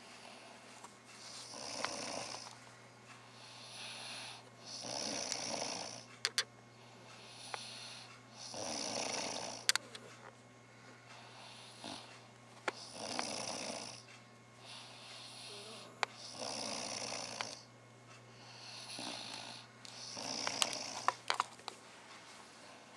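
A person snoring in sleep: six rough, rasping snores, one about every four seconds, with a few sharp clicks between them.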